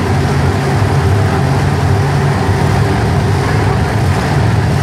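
Monster truck engine running loud and steady, filling an indoor arena.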